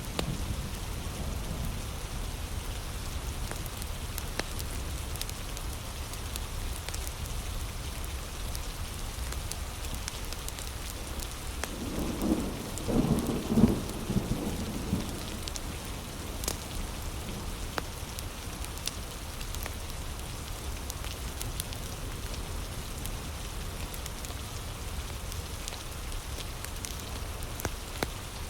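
Steady heavy rain, with a louder rumble of thunder swelling up and dying away about halfway through. Scattered sharp crackles of a wood fire sit over the rain.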